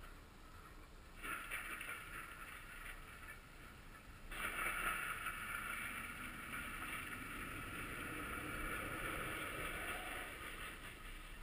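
Controlled demolition of a 1,350-foot LORAN radio tower: a muffled, distant rumble as the tower comes down, heard through a GoPro's sealed case. It swells once about a second in, then sets in more strongly about four seconds in and runs on for several seconds before easing.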